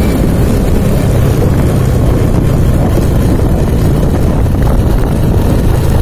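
SYM Bonus underbone motorcycle's small single-cylinder engine running steadily under way, mixed with loud steady road and wind noise on the microphone.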